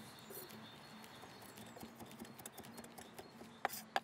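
Faint, light clicking and rustling of fresh tarragon being handled and stripped on a wooden board, then a few sharper knife taps on the wooden cutting board near the end.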